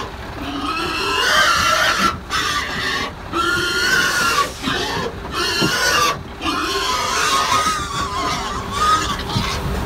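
Pigs crowded in a livestock transport trailer squealing and screaming, many wavering high cries overlapping and breaking off every second or so: distress calls. A steady hum runs underneath.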